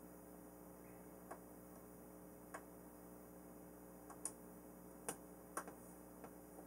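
Faint, irregular small plastic clicks and taps from an RC plane's ball link and control-horn hardware being handled and fitted, about seven in all, the sharpest two a little past the middle, over a low steady room hum.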